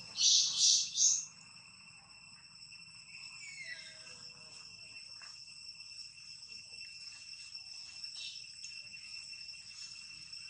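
Steady high-pitched chorus of insects, crickets or cicadas, in the forest, with three loud short high buzzes in quick succession about a second in.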